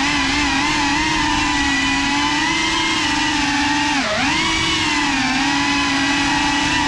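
FPV quadcopter's motors and propellers whining steadily as it flies, the pitch wavering with the throttle and dipping sharply about four seconds in before climbing back.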